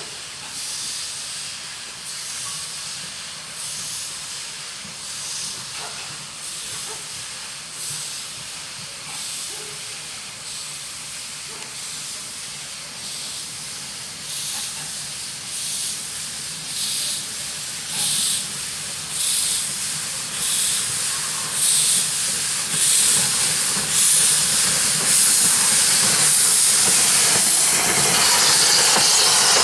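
Ol12 steam locomotive approaching at low speed, its exhaust chuffing in even beats about once a second and growing louder. Near the end a steady hiss of steam escaping around the cylinders takes over.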